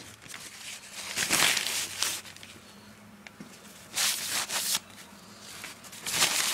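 Three bursts of scraping and rustling from hands handling bare engine parts.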